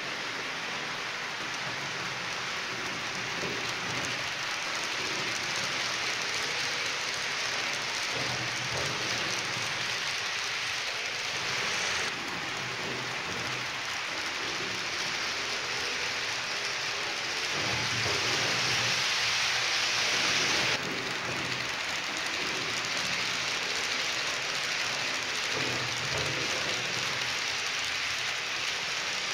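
H0-scale model freight train of tank wagons rolling along the layout's track: a steady rushing rattle of small metal wheels on the rails, with the sound jumping in level about 12 seconds in and again about 21 seconds in.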